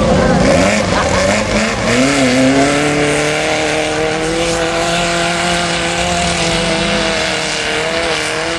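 Rail buggy engine at full throttle through a mud bog. Its pitch climbs over the first two or three seconds, then holds at a steady high note while the buggy ploughs through the mud, dipping slightly near the end.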